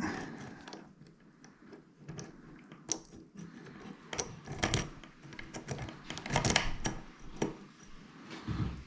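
Dimple lock pick being worked in and out of a dimple lock's keyway: small metallic clicks, rattles and scrapes, with louder clusters of scraping about five and six-and-a-half seconds in.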